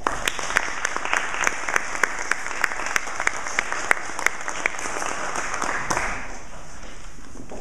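Audience applauding, with one set of close, loud claps at about three a second standing out over the rest; the applause dies away after about six seconds.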